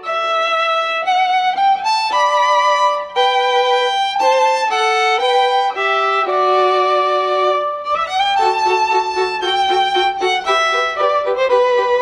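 Background music: a violin playing a slow melody, each note held about half a second to a second, with more notes sounding together from about eight seconds in.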